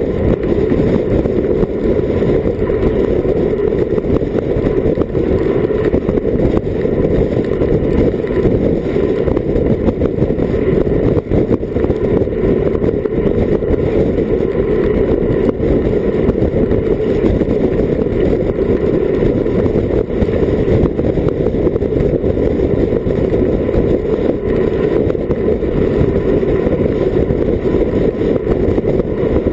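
Wind rushing over an action camera's microphone on a bicycle descending at about 45 km/h: a loud, steady low rumble with no breaks.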